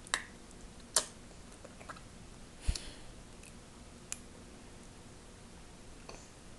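A handful of sharp taps and clicks of a baby's hand slapping and grabbing at food on a plastic high-chair tray, one of them with a dull thump about two and a half seconds in.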